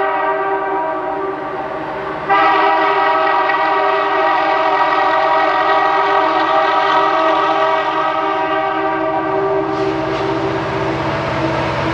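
Diesel locomotive air horn on a CN train led by EMD SD60s, sounding a steady multi-note chord: one blast easing off, then a second long blast starting about two seconds in. Near the end the horn fades as the low rumble of the passing locomotives grows.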